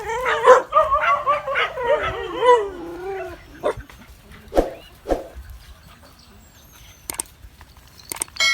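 Dogs fighting: wavering, high-pitched cries and yelps for about three seconds, then a few short barks. After that it drops much quieter, apart from a couple of sharp clicks.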